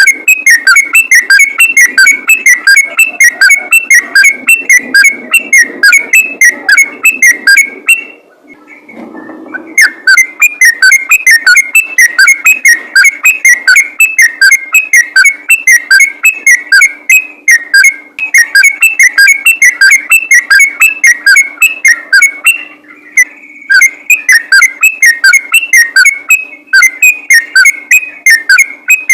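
Yellow-vented bulbul singing a fast, unbroken run of short whistled notes, about four a second, in the rapid 'ropel' style. The song breaks off about eight seconds in for nearly two seconds, then resumes at the same pace.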